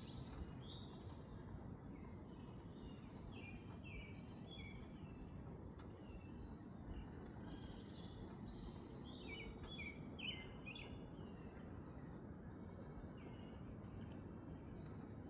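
Outdoor chorus of many birds chirping and calling in short overlapping notes, with a steady high insect trill, crickets, joining about halfway through, all faint over a low background hum.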